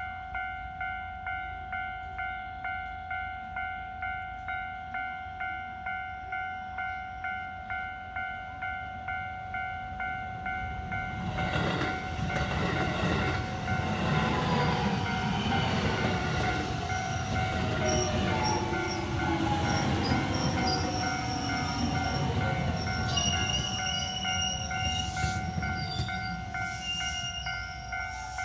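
Level-crossing warning bell ringing in a steady, evenly repeating pattern. About twelve seconds in, a passing train's rumble and wheel clatter rise over it and last to the end, with short high-pitched tones near the end.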